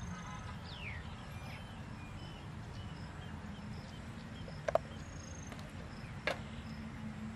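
Outdoor rural ambience: small birds chirping now and then over a low steady rumble. Two short sharp knocks, the first a little past the middle and the second near the end, stand out as the loudest sounds.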